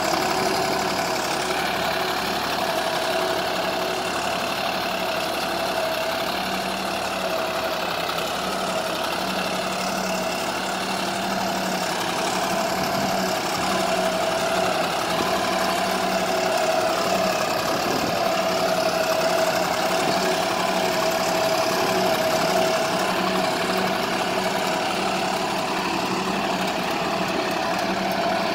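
Deutz-Fahr Agromaxx 50 hp tractor's diesel engine running steadily at an even pitch while pulling a tine cultivator through dry, hard soil.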